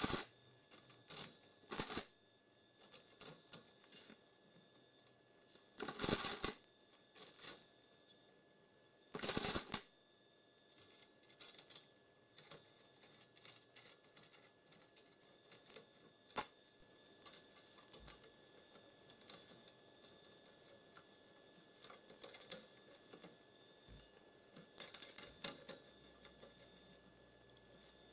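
Small clicks, taps and light rattles of hands fitting a pair of case fans with wire grilles onto a CPU heatsink inside a computer case. Two longer, louder bursts of handling noise come about six and nine seconds in.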